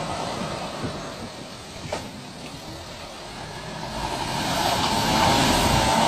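Audi A6 Quattro engine working hard under load with its wheels churning through slush as it pulls a stuck semi-truck. It grows louder from about four seconds in, with a wavering whine rising over the noise.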